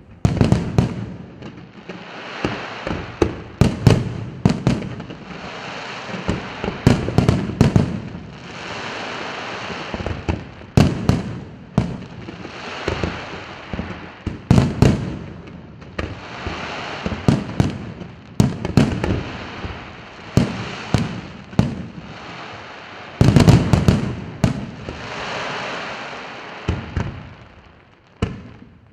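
Fireworks display: aerial shells bursting in quick succession, sharp bangs often less than a second apart, with a hissing spread between them. The bangs come thickest for a few seconds near the end.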